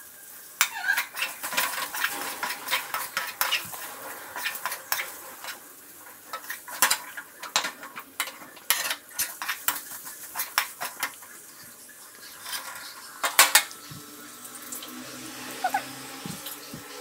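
A flat metal spatula scraping and clacking against a metal kadai as diced potatoes and onions are stirred and turned, in irregular strokes.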